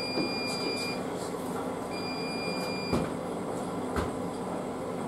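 Kitchen room tone: a steady low hum with a faint high whine that comes and goes, and two short knocks about a second apart near the end.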